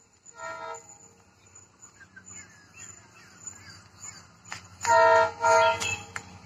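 Horn of an approaching WDG4 diesel locomotive hauling a goods train: a short faint toot about half a second in, then two loud blasts near the end. A low rumble from the train runs under it.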